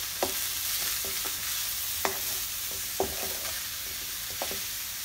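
Sliced vegetables sizzling as they are stir-fried in a wok. A spatula knocks against the wok about four times as they are tossed.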